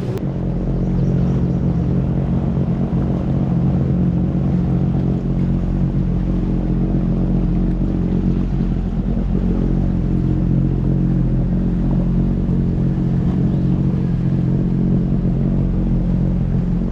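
Jet ski engine running at a steady cruising speed, a constant drone that holds one pitch throughout.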